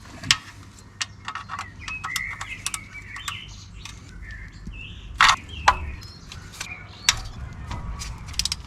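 Sharp metallic clicks and clinks of a 10 mm wrench working loose the oil pan bolts, the loudest about five and seven seconds in, with birds chirping now and then.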